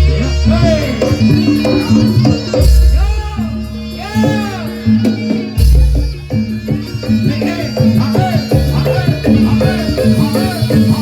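Traditional Javanese barongan accompaniment music: dense hand percussion and rattles under a steady drone and a wavering, reedy melody, with a deep low stroke about every three seconds.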